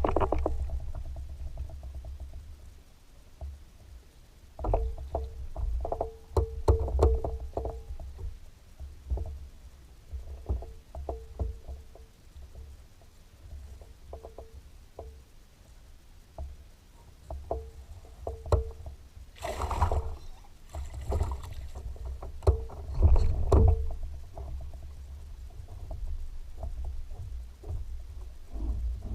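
Irregular clicks, knocks and thumps of handling on a fishing boat, over a low rumble, with a louder clattering stretch past the middle.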